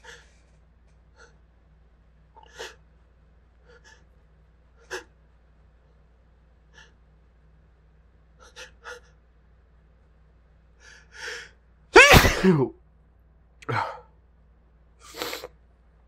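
Pepper- or spice-induced sneezing: a series of small catching breaths builds for about eleven seconds, then a loud sneeze with a falling voice breaks out about twelve seconds in, followed by two smaller bursts.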